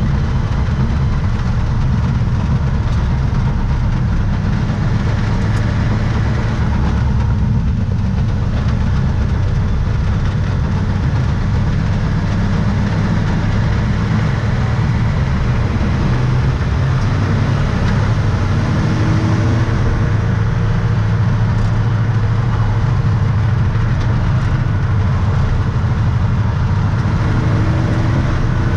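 A car's engine and road noise heard from inside the cabin while driving at speed on a race track: a loud, steady low-pitched running sound with no clear revving.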